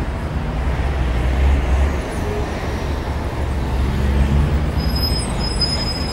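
Steady low rumble of city street traffic with a tram passing. A thin, high-pitched whine comes in near the end.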